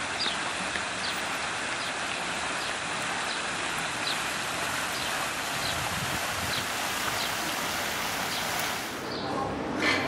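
Fountain water splashing: a steady rushing hiss that fades out near the end.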